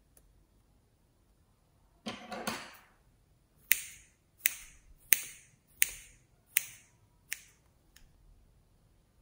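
Scissors snipping a piece of soft modelling clay into small bits: seven sharp snips a little under a second apart, after a brief rustle of handling about two seconds in.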